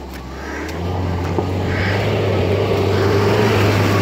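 UAZ Patriot off-road SUV's engine running at low revs as it crawls through mud, growing louder over the first second as it nears, then holding steady.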